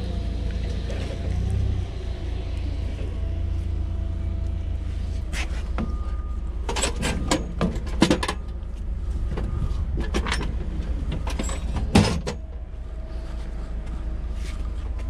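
Steady low mechanical hum, like an engine or machine running, under a scattering of sharp metal clicks and knocks from parts and tools being handled at the forklift's wheel hub. The two loudest knocks come about eight and twelve seconds in, and some leave a brief ring.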